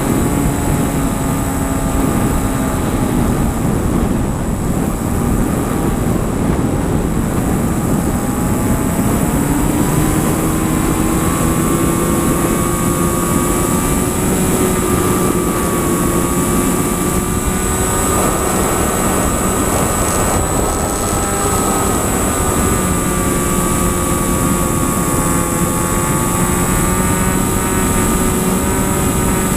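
Airplane in flight: an engine drones continuously under heavy rushing air noise. Its pitch sags a few seconds in, then climbs and holds, over a thin steady high whine.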